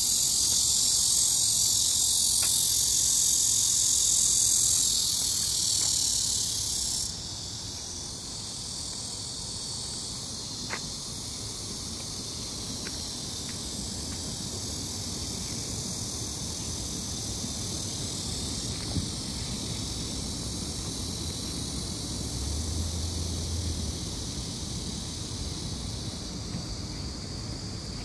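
A chorus of summer insects singing, a steady high-pitched shrill. It is loud for the first several seconds, then drops sharply about seven seconds in and carries on more softly.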